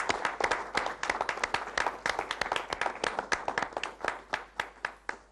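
A small audience applauding, many hands clapping irregularly, until the clapping stops suddenly at the end.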